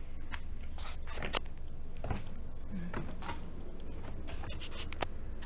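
Cardboard and styrofoam packing around a treadmill base being handled: scattered light knocks, taps and rustles over a low steady hum.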